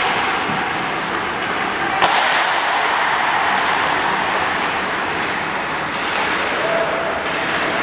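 Steady hiss of indoor ice-rink noise with one sharp crack about two seconds in, a hockey stick striking a puck.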